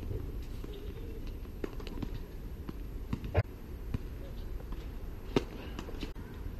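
Tennis rally on a hard court: sharp pops of rackets striking the ball and the ball bouncing, the loudest strikes about three and a half and five and a half seconds in, with fainter hits and bounces between, over a steady low hum.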